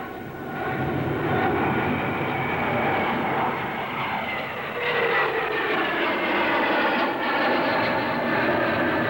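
A Vickers VC-10's four rear-mounted Rolls-Royce Conway jet engines running loud as the airliner passes. It is a steady jet whine whose pitch sinks slowly, swelling again about five seconds in.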